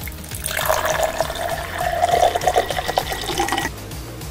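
Frothy ash gourd juice poured from a jug into a plastic cup: a splashing stream of liquid filling the cup, which stops a little before the end.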